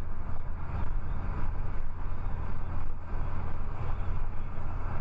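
Steady road and engine noise of a car driving at freeway speed, heard from inside the cabin: a deep, even drone with tyre hiss and no distinct knocks or horns.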